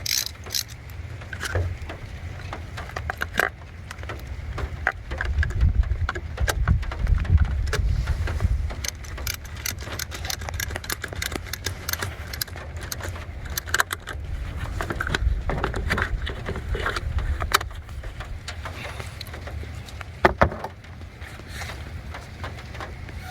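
Scattered metallic clicks and clinks of a wrench and the battery terminal clamp as the negative cable is refitted to the car battery, over a steady low rumble.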